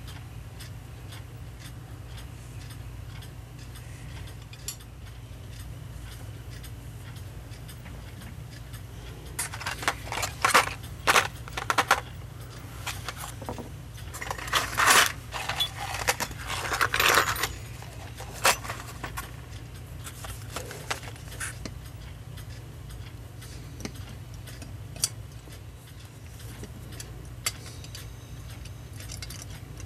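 Small brass clock-movement parts clinking and rattling against each other as they are handled, in irregular bursts over about ten seconds in the middle, loudest in two flurries. A steady low hum runs underneath.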